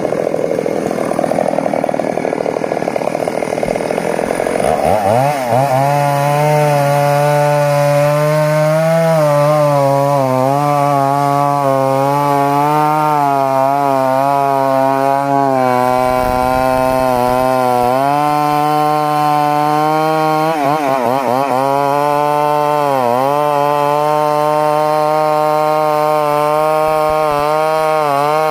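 Stihl two-stroke chainsaw running hard through johar wood. For the first few seconds it sounds rough under load, then it settles into a steady high-revving whine that sags briefly a couple of times as the chain bites.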